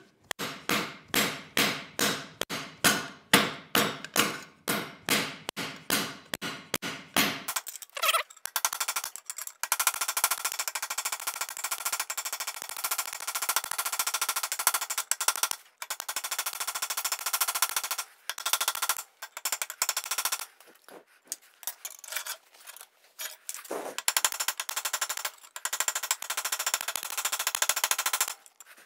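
Hammer peening cold rivets through a nut set over each rivet, fixing the handle to a 16-gauge steel ladle bowl: metal-on-metal blows about three a second, then after about seven seconds a much faster, dense rattle of blows with a few short breaks.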